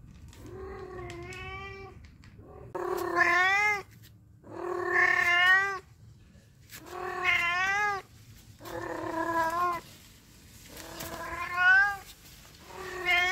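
A long-haired orange Persian-type cat meowing over and over: about seven long meows roughly two seconds apart, each rising and then falling in pitch, the first one fainter. It is the kind of cat that meows whenever a person is near.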